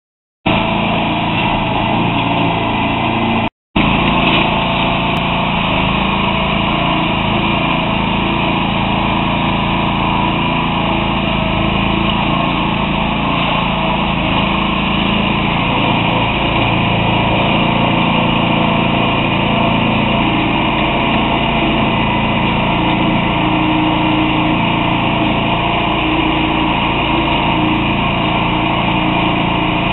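Engine running steadily as it turns the drum of a U-Cart towable concrete mixer trailer while concrete is poured down its chute; the sound cuts out for a moment about three and a half seconds in.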